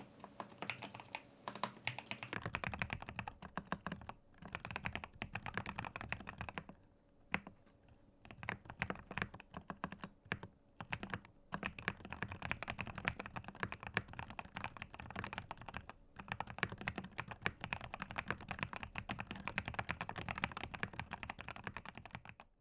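Fast typing on a GMK67 mechanical keyboard with Gateron G Pro milky yellow linear switches in a plastic case: a rapid run of keystroke clacks, thinning to a few scattered presses twice midway before picking back up.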